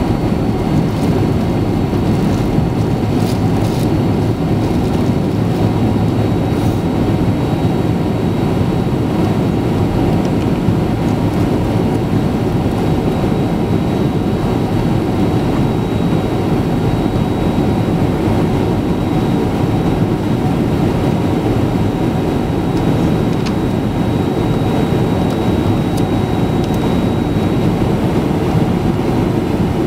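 Airliner cabin noise on approach: a steady rush of engine and air noise with faint, constant high whining tones above it.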